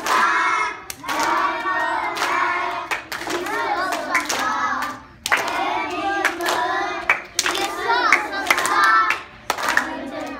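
A group of young children singing together in short phrases, with hand claps among the singing.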